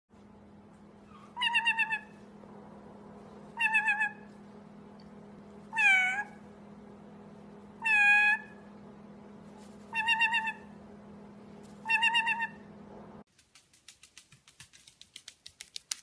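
White-bellied caique giving six meow-like calls about two seconds apart, some wavering and some bending down then up in pitch like a cat's meow, over a low steady hum. After the hum cuts off, a run of quick clicks grows faster near the end.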